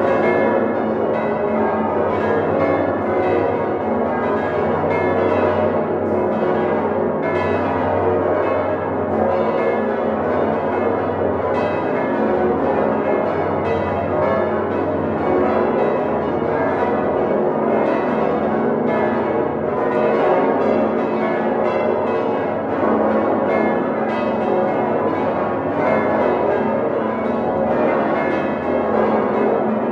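Full peal of the Domtoren's hand-rung swinging bronze church bells, heard up close inside the bell chamber: many bells of different pitches striking over one another continuously, each stroke ringing on into the next.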